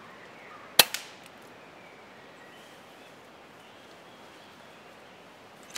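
A Daystate pre-charged air rifle fires a single shot about a second in: one sharp crack with a fainter click just after it, over faint outdoor background.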